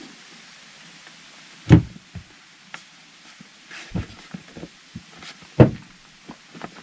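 Knocks and thumps as a Webasto heater unit is handled and pressed down into holes cut in a van's floor. There are two louder thumps, about two seconds in and again near the end, among several lighter knocks.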